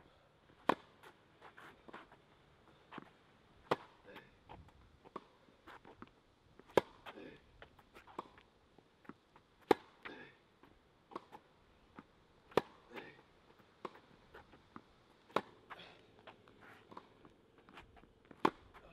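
Tennis ball being struck with a racket in a rally: a loud hit about every three seconds, with fainter hits and ball bounces in between.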